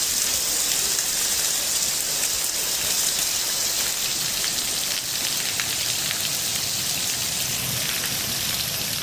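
Heavy rain pouring onto a flooded street, a steady dense hiss.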